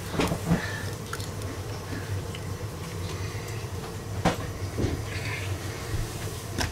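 A steady low mechanical hum with scattered sharp clicks and knocks, about five of them, spread unevenly.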